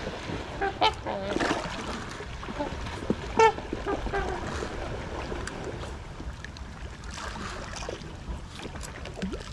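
Trumpeter swans honking: a scatter of short, trumpet-like calls, the loudest about three and a half seconds in, with fewer calls later on.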